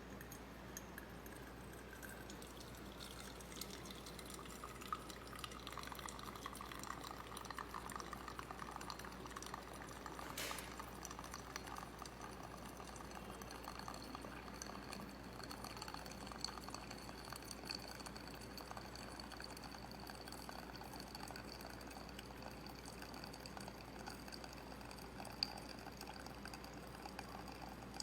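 Water poured slowly into a glass pitcher, faint, with a few light clicks along the way.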